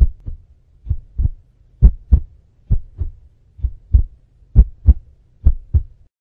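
Heartbeat sound effect: seven double thumps, about one a second, over a faint low hum, cutting off suddenly near the end. It serves as a suspense cue while the next finalist is about to be revealed.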